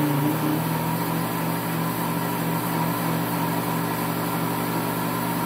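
Pampered Chef Deluxe Cooking Blender motor running fast, blending a frozen drink with ice. Its pitch steps up slightly just after the start as the speed dial is turned up, then holds steady.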